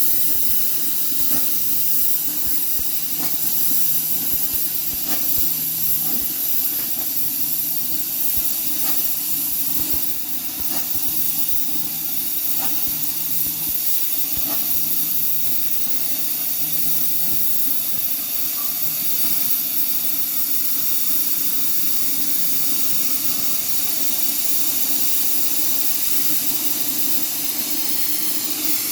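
CNC plasma cutter cutting 7 mm sheet metal: the plasma arc and its air jet give a loud, steady hiss over a low hum. A low tone switches on and off in short stretches through the first half.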